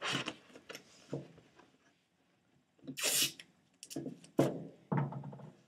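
Masking tape ripped off the roll in a short rasp about three seconds in, among knocks and rustles of the box's panels being held and taped at a corner.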